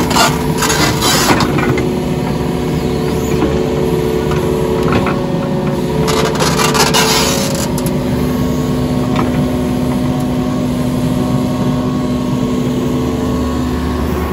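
Compact tracked excavator's engine running steadily at working speed. Near the start and again about six seconds in come spells of clattering noise as clay and rock spill from the bucket.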